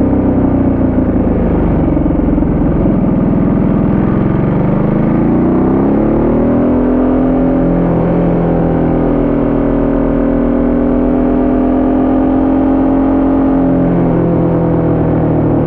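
Ducati Multistrada 1200S's 1198 cc L-twin engine under way, heard close to the bike. Its pitch sinks slowly at first, climbs as the bike accelerates about four seconds in, holds steady, then falls suddenly near the end.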